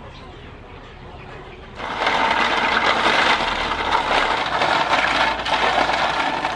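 River snails being scrubbed by hand in salted water in an aluminium basin: shells clattering against each other and the metal, with water churning. It is quiet at first and the loud rattling starts about two seconds in.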